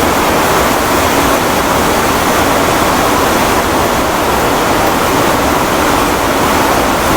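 Steady, unbroken rushing noise at a constant level, strongest in the middle range, with no distinct events.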